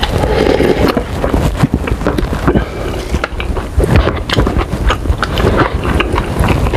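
Close-miked eating sounds: a sip of broth from an instant noodle cup at the start, then irregular wet chewing and mouth clicks, with a metal fork stirring noodles in the cup.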